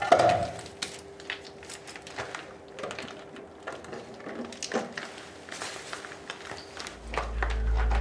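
Scattered scrapes and light knocks of a hollow clay brick being worked loose from the base of a brick wall and set down, over a faint steady hum. A low rumble of music comes in about seven seconds in.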